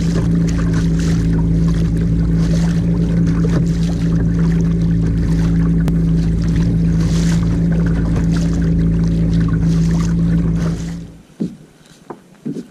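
Hobie Outback kayak moving through the sea, water splashing off the bow in washes every second or two over a steady low hum. About a second before the end this drops away to a much quieter sound with a few short knocks.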